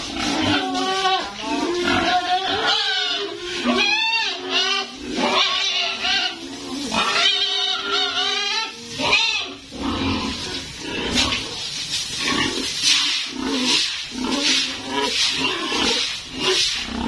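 Pigs squealing: wavering pitched cries through the first half, then harsher, noisier cries repeating about once or twice a second.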